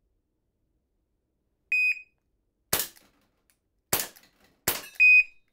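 An RU Ready shot timer gives its start beep. About a second later a Crosman Vigilante CO2 air pistol fires three pellet shots, the last two less than a second apart. The timer's par beep, set for 3 seconds after the start, comes just after the third shot.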